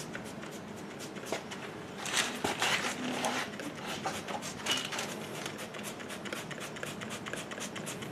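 Plastic trigger spray bottle squirting onto a rubber window seal in quick repeated pumps, each squeeze a short hiss. The pumps come thickest and loudest from about two seconds in.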